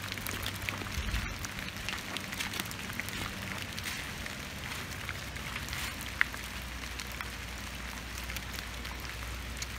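Steady rain falling on wet, leaf-covered ground, many small drop ticks over a low rumble, with one sharper tick about six seconds in.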